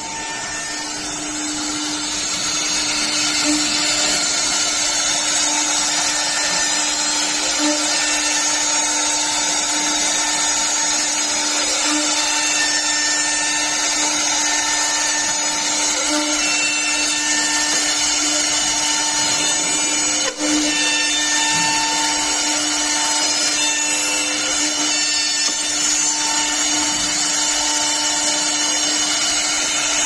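Door-lock side-drilling CNC machine at work: its spindle motor runs at high speed with a steady whine over a dense hiss while it drills the lock holes into the edge of a wooden door.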